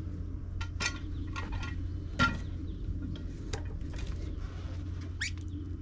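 Scattered clinks and knocks of a steel log-turning hook working against a log as it is rolled on a sawmill bed, the loudest a knock about two seconds in, over a steady low rumble.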